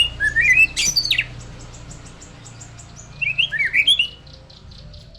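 White-rumped shama in full song: two bursts of loud, rich whistled phrases, each about a second long, with a quick run of thin ticking notes in between.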